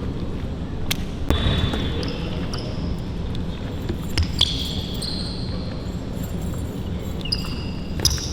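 Basketball bouncing on a court, a few sharp knocks, with several short high squeaks over a steady background hum of noise.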